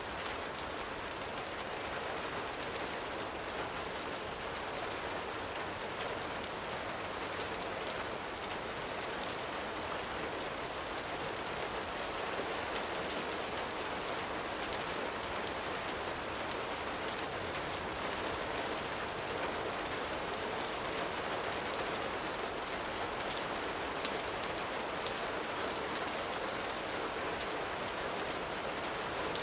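Steady gentle rain: an even hiss with many small ticks.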